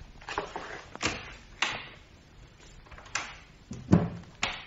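Radio-drama door sound effects: a handful of scuffs and knocks, the loudest a thud about four seconds in, like a door being shut.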